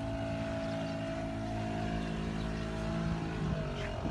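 Motorboat engine running steadily, its pitch dipping briefly near the end and then rising again.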